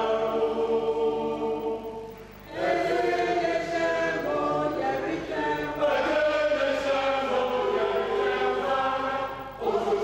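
Choir singing a hymn in harmony, sustained notes in several voices, with a short break between phrases about two seconds in and another near the end.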